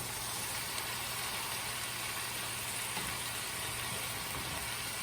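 Steady frying sizzle from a pan of fresh spinach wilting down over the heat, with a faint low hum underneath.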